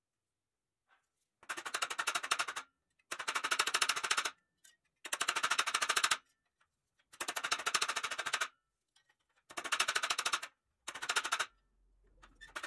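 A hammer tapping the pressed-steel cab of a toy truck, in six bursts of very fast metallic taps, each about a second long, with short pauses between.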